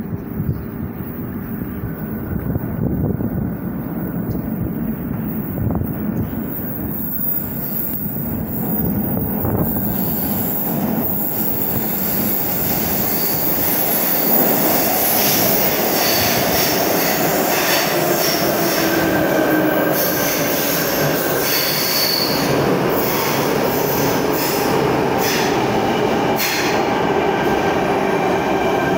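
Sydney Trains Tangara electric train arriving at an underground platform: a rumble builds as it comes through the tunnel, then wheel squeal and rolling noise stay loud as the carriages run in along the platform from about halfway on.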